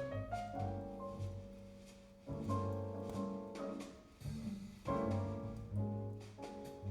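Jazz piano trio recording played back over Sound Lab G9-7C electrostatic loudspeakers and picked up in the room: piano chords over a double bass line.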